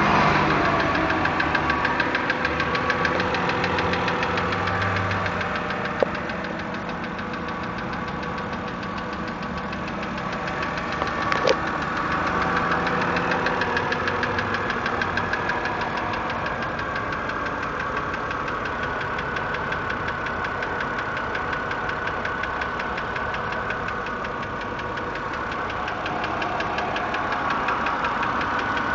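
2008 BMW 328's straight-six engine idling just after a cold start, with a rapid, even knocking all through. This is the cold-start knock that shows after the car has stood outside for 24 hours. The engine is a little louder at first and settles after about six seconds; two short sharp clicks come through along the way.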